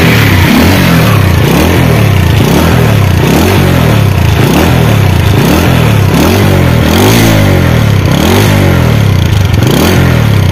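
Runner Bullet motorcycle's small single-cylinder engine, just started and revved about once a second, the pitch climbing and falling back with each blip of the throttle, heard close to the exhaust silencer. It runs without any bad noise.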